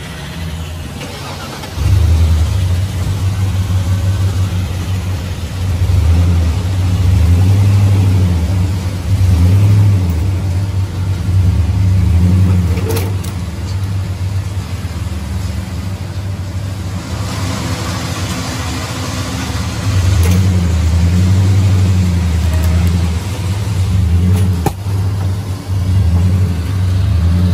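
A vehicle engine revving in repeated surges under load, straining to drag a car that will not run out of a shed. It cuts in abruptly about two seconds in, and a sharp knock comes about halfway through.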